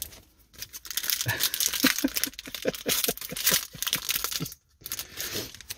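A footy-card pack wrapper being torn open and crinkled by hand, an irregular crackle that stops briefly and starts again near the end.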